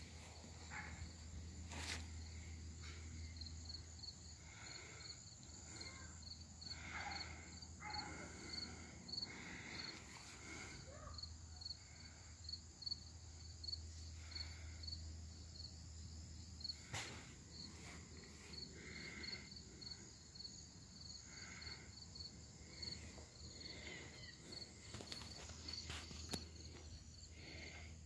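Quiet outdoor ambience: an insect chirping in a high, steady rhythm, about two to three chirps a second, with faint scattered clicks.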